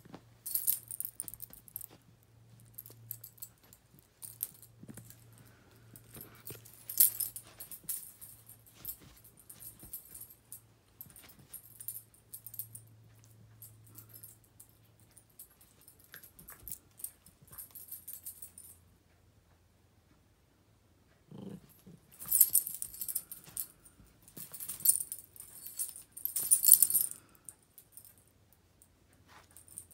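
Small dog's collar tags jingling in irregular bursts as it wrestles with a cat, with a silent gap about two-thirds of the way in and the loudest jingling after it.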